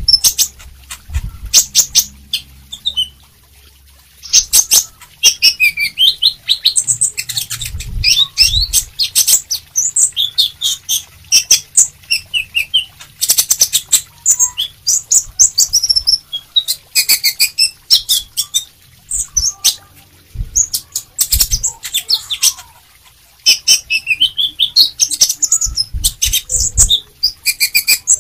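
Caged male sunbird singing a rapid, high-pitched twittering song in bursts with short pauses, mixed with sharp clicks and a few low thumps.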